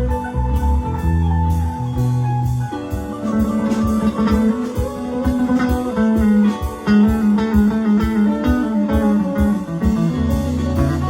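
Live band playing an instrumental passage with no singing: guitar lines over bass and drums, a cymbal keeping a steady beat.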